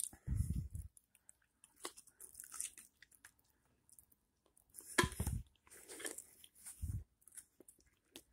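A person chewing and crunching food: irregular crunches and mouth clicks, with a few dull thumps, the loudest about five seconds in.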